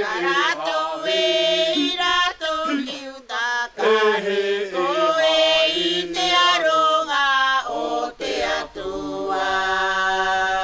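Church choir singing a hymn a cappella, in phrases with short breaks between them, ending on a long held chord near the end.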